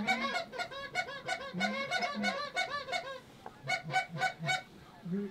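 A flock of Canada geese honking, many short overlapping honks with brief pauses about three seconds in and near the end.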